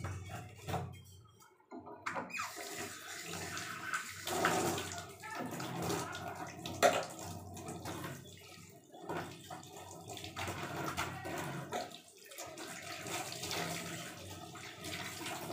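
Water running from a tap into a steel sink while hands rinse and wash under the stream; the water comes on about two seconds in. Scattered knocks from things handled in the sink, the loudest a sharp clank about seven seconds in.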